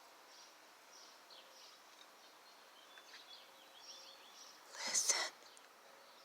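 Small birds chirping faintly: many short, downward-sliding chirps repeated throughout. A brief, louder noisy burst comes about five seconds in.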